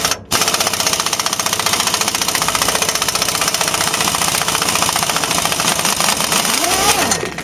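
Power impact wrench hammering rapidly and steadily for about seven seconds, working a seized exhaust-manifold nut on a burnt bolt loose; it stops just before the end.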